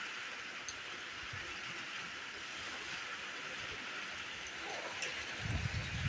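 Steady hiss of heavy monsoon rain falling, with a few faint ticks of drops. Near the end, a few low, uneven rumbling thumps rise over it.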